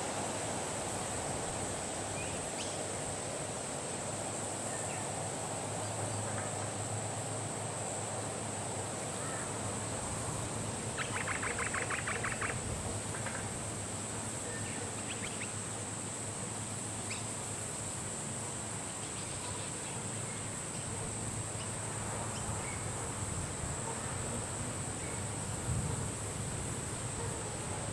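Birds chirping sparsely over a steady high hiss-like background, with one quick rattling trill about eleven seconds in.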